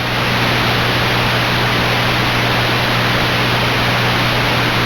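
Steady loud static hiss with a low steady hum under it, rising over the first moment and then holding level.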